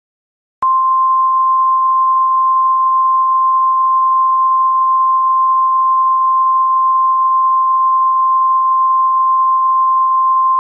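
Emergency alert attention tone: a single steady tone near 1 kHz that starts with a click about half a second in and holds unchanged for about ten seconds.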